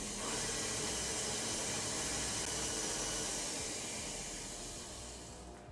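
KitchenAid stand mixer running, beating eggs into creamed butter and sugar: a steady hissing whir that fades away toward the end.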